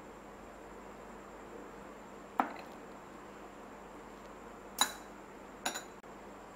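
A metal spoon clinking lightly against glass and tableware as chopped apple is spooned into a tall glass: three short clinks a second or two apart, the middle one the loudest.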